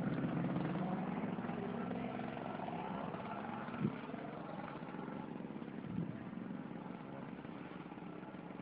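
An engine running steadily, slowly growing fainter, with two brief louder sounds about four and six seconds in.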